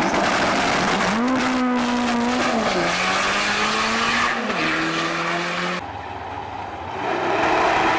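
Drag racing car launching and accelerating hard down the strip, its engine pitch climbing and then dropping at two gear shifts. About six seconds in the sound cuts to a quieter background, and another car's engine builds near the end.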